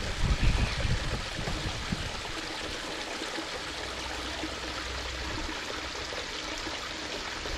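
Water trickling and running in a steady rush, with a few dull knocks of handling in the first second or so.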